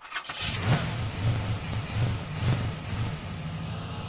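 Car engine catching about a third of a second in and idling with a lumpy, uneven pulse, settling steadier in the second half.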